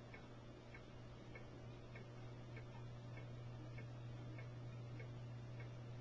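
Faint, regular ticking, about three ticks every two seconds, over a steady low hum.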